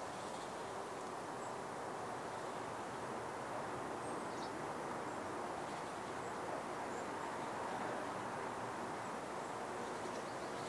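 Outdoor garden ambience: a steady, even hiss with a few faint, short, high bird chirps.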